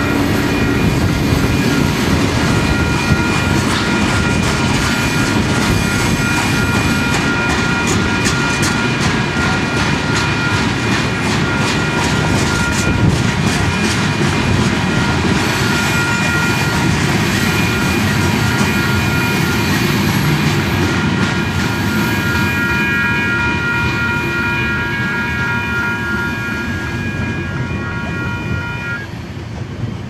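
Freight train of covered hopper cars rolling past at speed, its wheels clattering steadily over the rails, with several steady high ringing tones over the rumble. Near the end the ringing stops and the train noise fades.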